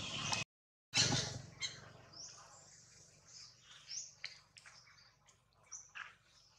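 Many short, high chirps and squeaks, a few each second, with pauses between them. They follow a brief cut-out and a burst of noise about a second in.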